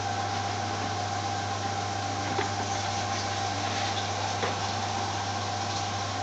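Steady mechanical hum and hiss of restaurant-kitchen equipment, with a couple of faint clicks.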